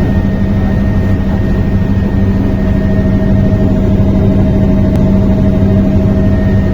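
Helicopter in flight heard from inside the cabin: a loud, steady engine and rotor drone with constant whining tones over a low rumble.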